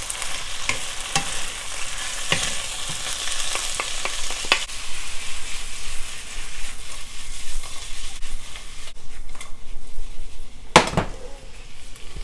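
Bitter melon, beef and onion sizzling in a hot nonstick wok while a wooden spatula stirs through them, with scattered knocks of the spatula against the pan. About nine seconds in the sizzle drops away, followed by one louder knock.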